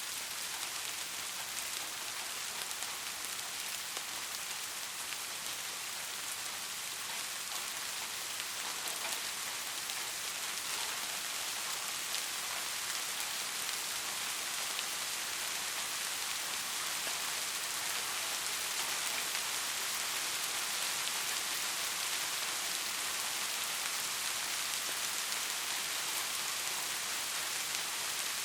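Steady soft rain falling, an even hiss of many small drops pattering on a surface.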